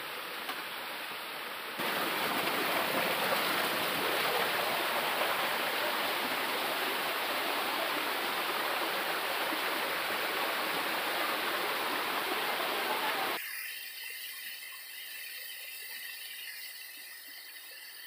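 Small forest waterfall splashing over rocks into a stream: a steady rushing of water that grows louder about two seconds in. Near the end it cuts abruptly to a fainter, thinner hiss.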